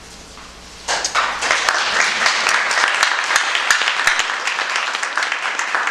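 Audience applause that breaks out about a second in and keeps going: many hands clapping, with one pair of hands clapping close by.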